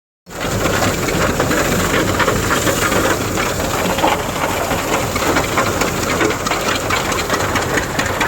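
Engine-driven groundnut thresher running steadily: a loud, dense mechanical clatter and rattle that cuts in abruptly just after the start.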